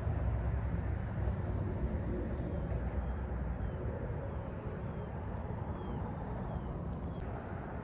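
Steady rumble of road traffic that slowly fades, with a few faint high chirps.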